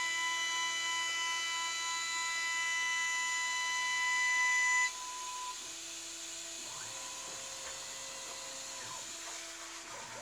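CNC milling machine running: a steady high whine with several pitches and lower motor tones that switch on and off. The loudest whine cuts off about five seconds in, leaving the quieter motor tones.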